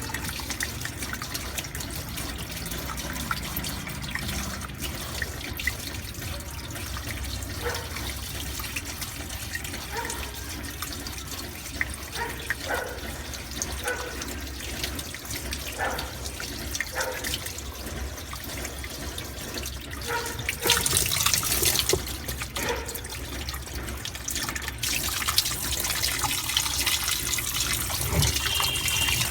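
Water running and splashing, steady, growing louder for a moment about 21 seconds in and again from about 25 seconds on.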